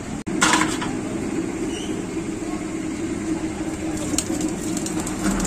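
Besan sev dough pressed from a brass hand press into hot oil in an iron kadhai, the oil sizzling and crackling in the last second or so, over a steady low rumble. A brief louder rush comes about half a second in.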